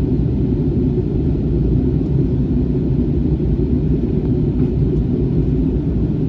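Steady cabin noise inside an Airbus A321 airliner on approach: a loud, even rumble of engines and airflow, heaviest in the low range.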